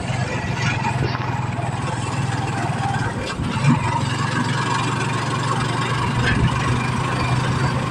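Engine of a small open-sided vehicle running steadily as it drives along a road, with road and wind noise and one short knock a little before halfway.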